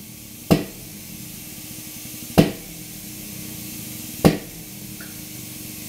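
Three sharp metallic clicks, about two seconds apart, from a hand-pumped hydraulic cylinder rig forcing an aluminium part against the vise jaws, over a steady faint hum and hiss.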